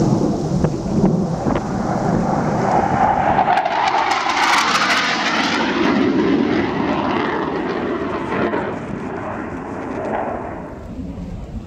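Military fighter jet flying past low. The jet noise is loudest about four to five seconds in, its pitch falling as it passes, then eases off.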